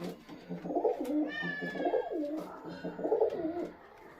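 Domestic pigeons cooing, a run of low warbling coos rising and falling in pitch that stops near the end, with a brief higher whine over them about a second in.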